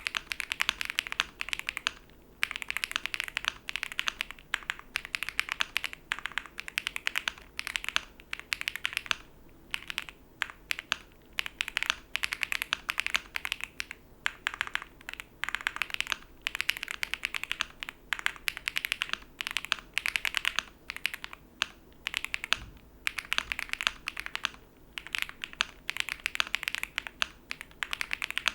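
Typing on a Leobog Hi8 aluminium mechanical keyboard with Akko Yellow Pro linear switches, in almost stock condition. Rapid key clacks come in bursts of a second or two, with brief pauses between them.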